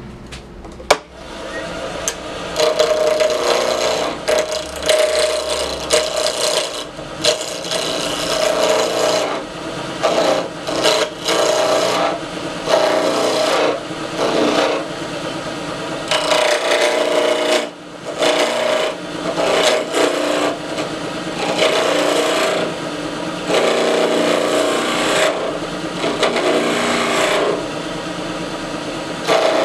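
Wood lathe running while a spindle gouge cuts wooden pieces mounted on a pin mandrel: a raspy cutting sound that comes in repeated short passes over the steady hum of the spinning lathe. There is a sharp click about a second in.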